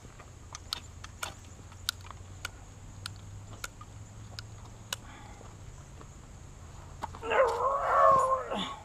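Scattered sharp clicks and scrapes of a knife struck along a ferro rod on concrete to throw sparks at a cotton ball. About seven seconds in, a loud, high, wavering cry lasts about a second and a half.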